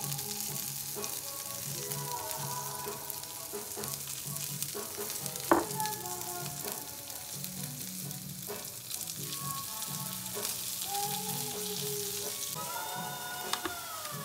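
Asparagus spears sizzling as they fry in a non-stick frying pan, with a sharp knock about five seconds in. Background music plays over it.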